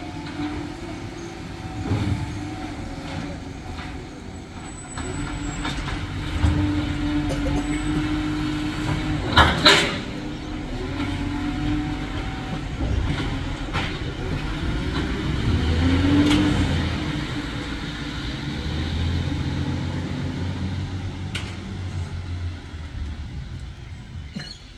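Recycling truck running at work: a steady engine rumble with a wavering hydraulic whine, and a loud clattering crash about ten seconds in, as of a bin being tipped into the truck. Near the sixteen-second mark a tone rises briefly as the engine or pump speeds up.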